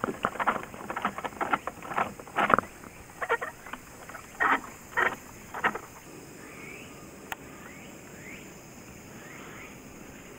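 A run of quick knocks and clatter aboard a small fishing boat for about six seconds. After that come a few faint, short rising calls from an animal, and a single sharp click.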